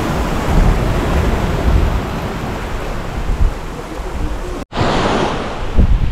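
Ocean surf washing onto a beach, with wind buffeting the microphone as an uneven low rumble. The sound drops out for an instant about three-quarters of the way through, then a fresh wash of surf comes in.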